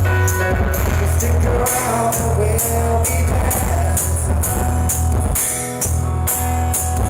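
Live pop band music played loud through a concert PA, with drums and a heavy, pulsing bass. It was recorded close to the speakers, so it crackles and distorts.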